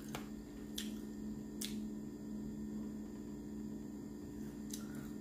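Steady low electrical hum with a few faint clicks of mouth and handling noise, and a soft crunch about four seconds in as a crispy fried chicken sandwich is bitten.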